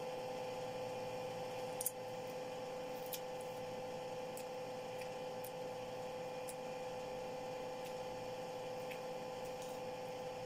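A steady hum, with a few faint clicks and soft squishing as white pomelo segments are pulled apart by hand.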